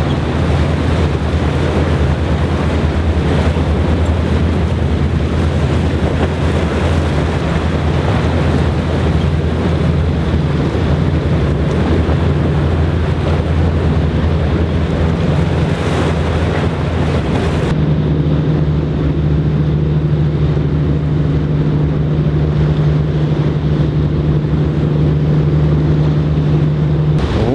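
A boat engine droning steadily under a constant wash of waves and wind noise.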